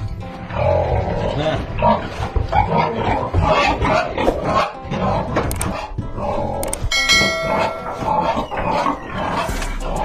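Domestic pigs grunting and snuffling at close range, a steady jumble of short irregular grunts. About seven seconds in, a brief bell-like chime rings for under a second.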